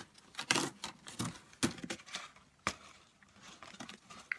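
Close-miked eating sounds: chewing, with the food and its packaging handled, heard as a string of irregular soft clicks and crinkles.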